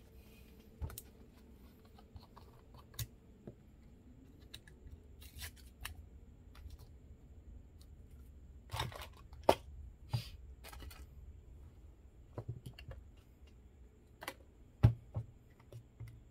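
Scattered clicks, taps and brief rustles of small parts of an HP printhead cleaning kit (plastic clips, syringe) being handled, with a sharp click about halfway and a louder knock near the end.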